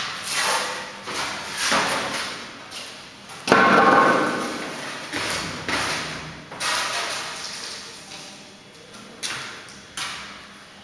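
Stiff laminate underlay sheets being handled: knocks and slaps as a sheet is pulled from the stack, flexed and laid on a concrete floor, mixed with footsteps in slippers. The loudest slap comes about three and a half seconds in, with a short ring after it.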